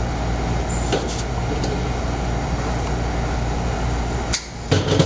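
A steady low mechanical hum, with a few sharp clicks and knocks as a rubber hose and its fittings are handled; the hum dips briefly near the end.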